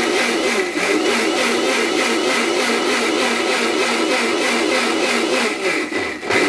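Havells electric mixer grinder running under load, its motor and blade churning soaked dried chillies into a wet paste in a stainless-steel jar. The sound is steady with a fast wavering churn and dips briefly near the end.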